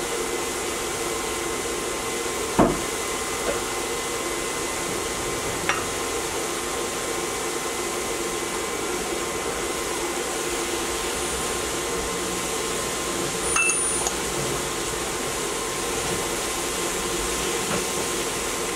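Vegetables steaming in a skillet on a portable induction cooktop: a steady hum and hiss, broken by a few sharp clinks of a stirring utensil against the pan, the loudest about two and a half seconds in and two more together after about thirteen and a half seconds.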